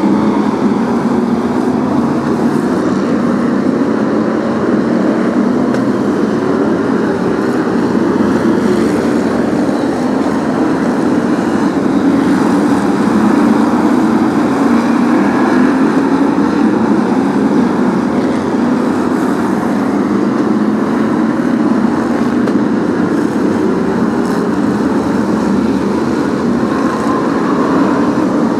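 A pack of V8 stock car engines running together, a loud, steady, continuous drone.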